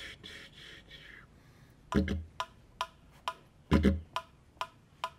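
Didgeridoo played in short rhythmic phrases. A fading breathy rasping in the first second gives way to two loud low drone blasts, about two seconds in and again near four seconds, with short sharp staccato pops between them.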